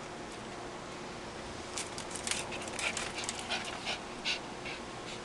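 A chihuahua and another small dog play-fighting at close range. About two seconds in, a run of quick, irregular breathy and scuffling noises begins and keeps going.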